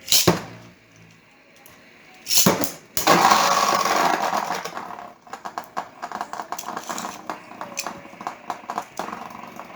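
Spinning tops (Beyblades) launched into a plastic stadium, starting with a loud burst about 3 seconds in. A whirring scrape follows and fades, then rapid repeated clicks as the tops clash and scrape against each other and the stadium wall.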